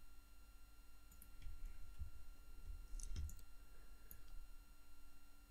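Faint scattered clicks from a computer mouse and keyboard as the software is worked, over a faint steady hum.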